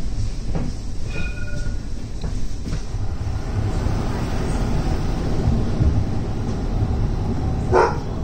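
Edinburgh tram (CAF Urbos 3) running along the street, heard from inside the passenger saloon as a steady low rumble of motors and wheels. A short squeal near the end is the loudest moment.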